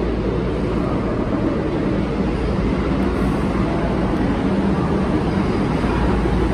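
Steady rumble of trains at a station platform, with a constant low hum and no sudden events.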